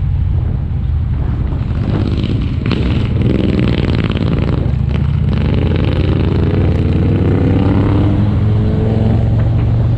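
Motorbike engine running and revving up, its pitch climbing through the second half, with wind buffeting the microphone.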